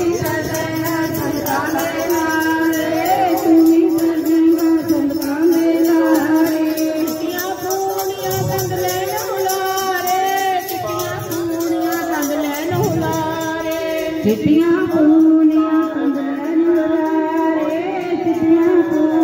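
Sikh kirtan sung by a group of women into microphones and played through a loudspeaker, over a steady held drone, with a jingling percussion keeping an even beat.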